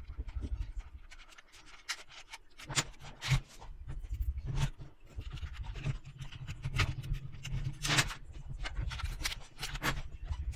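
Small metal construction-kit parts of a toy truck clicking and scraping as the chassis is handled and pieces are fitted by hand, with many sharp clicks over a low rumble of handling noise.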